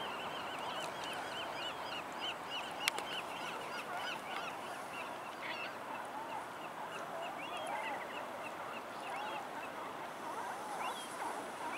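Many birds calling at once, a busy run of short, quick calls over a steady hiss, with a single sharp click about three seconds in.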